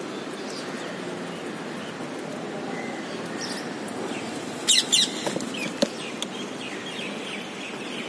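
Rose-ringed parakeets calling while feeding: a few loud, shrill shrieks about halfway through, then softer short chirps and a couple of clicks, over a steady background hiss.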